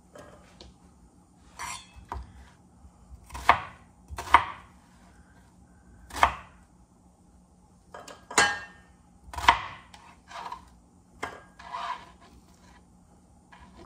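Kitchen knife chopping a peeled onion into chunks on a plastic cutting board: about nine single, unevenly spaced chops.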